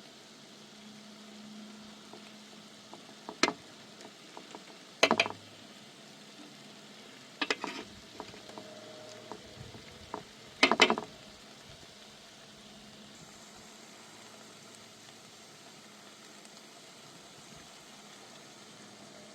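Meat frying in a pan with a steady sizzle. About four sharp metallic clinks break in, each ringing briefly, the loudest near the end.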